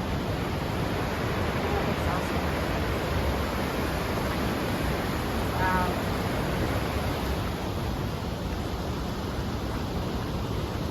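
Steady rushing of a mountain creek running high with snowmelt, with a brief high-pitched sound about six seconds in.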